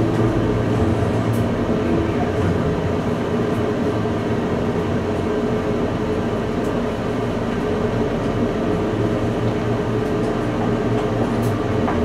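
Steady running noise inside the cab of a SMART diesel railcar moving along the track, with an engine hum under the rail noise, as the train slows under a full service brake application.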